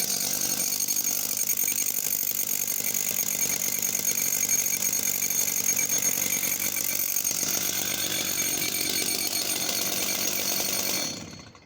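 Solo 654 54cc two-stroke chainsaw running steadily at high revs, then shut off about eleven seconds in, the engine note dying away quickly.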